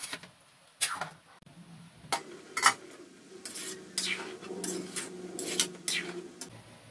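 Metal spatula clanking and scraping against an aluminium wok while stirring curry, with a few sharp clanks in the first three seconds, the loudest about two and a half seconds in, then a run of scraping strokes.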